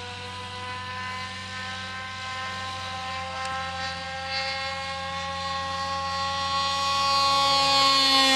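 MVVS model-aircraft engine on an RC Messerschmitt Bf 109 running at high throttle with a steady, high propeller whine. It gets louder and slowly rises in pitch as the model flies in low toward the listener, and begins to drop in pitch right at the end as it passes.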